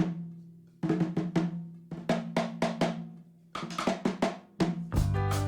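Background music: a drum intro of separate sharp hits with ringing low tones, then a fuller band with bass and sustained pitched notes comes in near the end.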